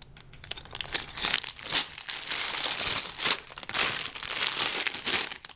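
Sealed plastic bags of Lego pieces crinkling continuously as they are picked up and stacked, with many short crackles.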